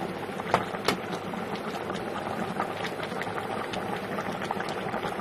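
Coconut-milk stew of green jackfruit and pork ribs boiling in a pan, bubbles popping in a steady crackle, with two sharper clicks about half a second and a second in.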